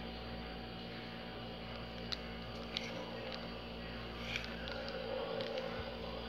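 Steady low electrical hum, with a few light crackles of plastic wrap being handled and soft sticky sounds as the risen yeast batter is pulled up.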